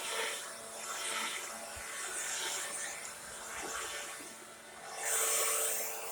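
Leaf blower running steadily, its motor hum holding one pitch while the rush of air swells and fades roughly once a second, loudest near the end.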